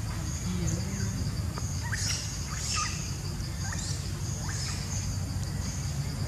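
Outdoor ambience: a steady high insect buzz that pulses on and off, with scattered short high chirps and a low rumble underneath.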